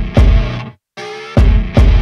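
Outro music with heavy, punchy beats, playing in short stop-start phrases that cut out briefly about three quarters of a second in, then come back.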